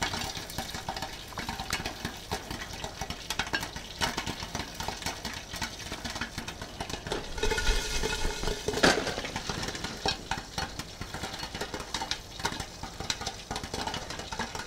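Popcorn kernels popping fast in hot bacon grease inside a lidded cast iron Dutch oven, a dense, irregular run of pops. About eight seconds in, the pot is shaken back and forth on the burner, a brief louder scraping rattle, to keep the popcorn from scorching.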